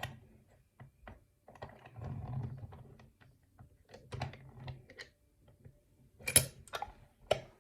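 Light clicks, taps and rustling from handling a challenge lock and lock-picking tools, with a few sharper metal clicks a little over six seconds in and again near the end.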